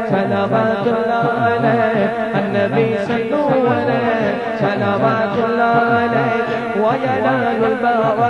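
Devotional naat music between sung lines: layered voices over a steady, evenly repeating low rhythmic backing.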